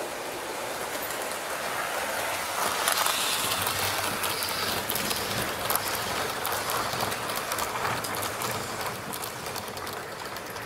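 A train running by: a steady rushing rattle of wheels on rail with many small clicks, growing louder about three seconds in and then slowly easing off.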